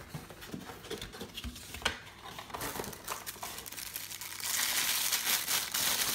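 Light rustling and small knocks of packaging being handled in a cardboard box. About four and a half seconds in, a thin plastic bag starts crinkling loudly and steadily as a lens hood is unwrapped from it.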